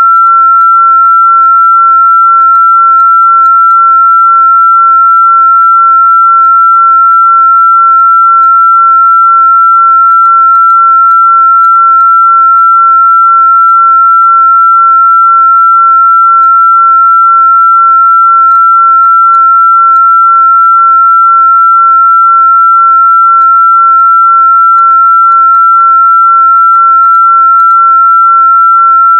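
A single loud, steady, high-pitched electronic sine tone, unchanging in pitch and level throughout.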